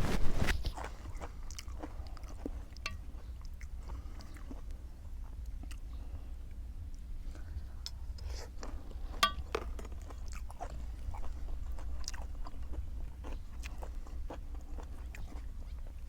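A person eating pork noodle soup close to the microphone: chewing and biting, with scattered small clicks and one louder burst right at the start.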